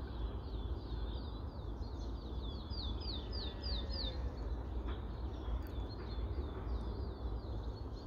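A small songbird singing: runs of short, high, hooked notes, about three or four a second, with brief pauses between runs. Under it, a steady low rumble of wind on the microphone.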